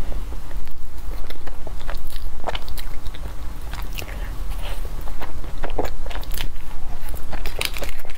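Close-miked mouth sounds of a person biting into and chewing a soft matcha-dusted cake, with many small wet clicks and smacks. Near the end, a paper cake liner crinkles as it is peeled.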